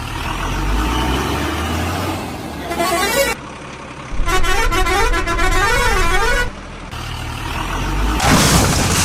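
Vehicle sound effects: a low, steady engine rumble, then a wavering siren-like tone that rises and falls, heard briefly and then for a couple of seconds with a patter of clicks. A loud, noisy blast comes near the end.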